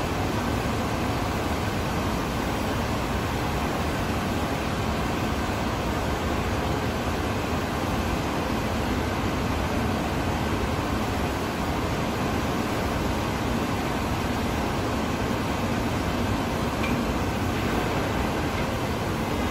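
Steady industrial din in a large steel workshop hall: continuous machinery and ventilation noise, even in level throughout, with no distinct impacts.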